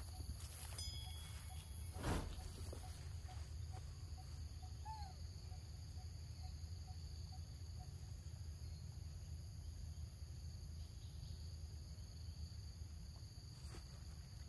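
Quiet outdoor ambience: a steady high-pitched insect drone over a low rumble. There is a soft knock about two seconds in, and a faint run of evenly spaced pips, about two a second, through the first half.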